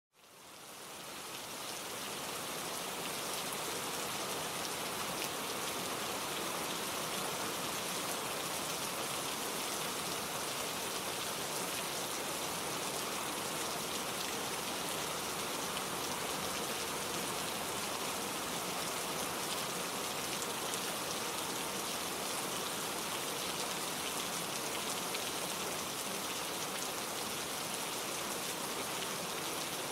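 Steady rain falling, a dense even hiss of many drops, fading in over the first second or two.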